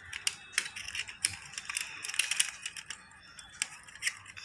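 Light, quick clicks and taps of a die-cast toy Hummer being handled as its small hinged doors are opened. The clicks come thick for about the first two and a half seconds, then only a few single ones near the end.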